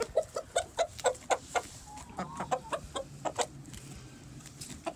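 Domestic hens clucking: a quick run of short clucks, several a second, in the first second and a half, then sparser, softer calls and a few sharp ticks, dying down near the end.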